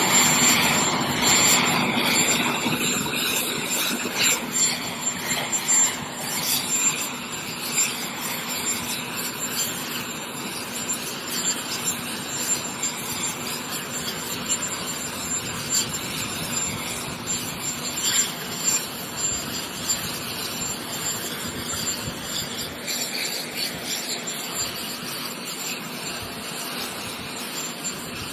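Steady jet aircraft engine noise, a broad rushing sound with a thin high whine over it, a little louder in the first few seconds and then easing slightly.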